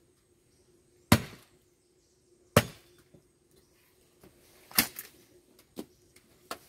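Axe chopping firewood: three loud chops about one and a half to two seconds apart, then two lighter knocks near the end.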